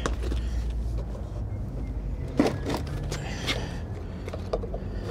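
A plastic toolbox being handled and its lid opened: a few separate knocks and clicks of latches and rattling tools over a low steady background hum.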